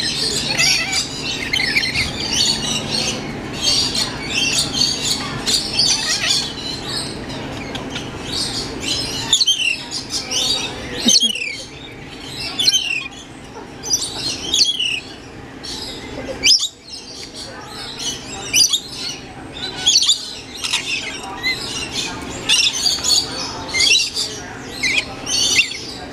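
Lorikeets chattering and screeching: a continuous stream of shrill, quick calls, many falling in pitch, with a few brief lulls.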